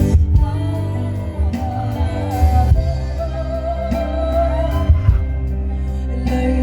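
Live band playing, with a singer over heavy bass and drum hits.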